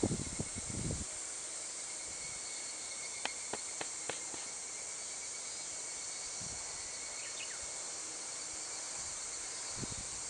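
Steady high insect chorus with a thin, even whine running through it and a few sharp clicks a few seconds in. Wind buffets the microphone with low rumbles in the first second and again near the end.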